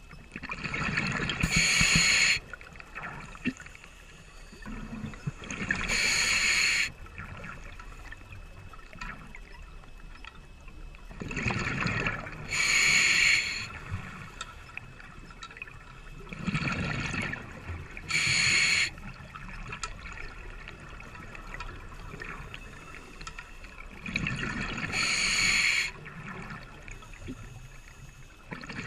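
Open-circuit scuba regulator breathing heard underwater: about five breath cycles, roughly one every five or six seconds, each a hiss through the regulator and a low gurgling rush of exhaled bubbles.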